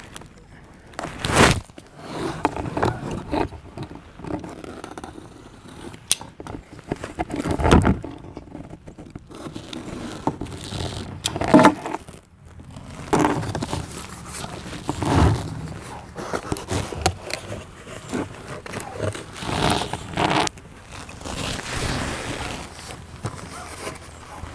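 A tool set's packaging being opened and handled: irregular scraping and rustling of cardboard and plastic, with a few sharper handling noises along the way.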